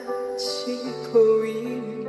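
Instrumental introduction of a Korean ballad: sustained melodic notes over held chords, with a brief high hissing accent about half a second in.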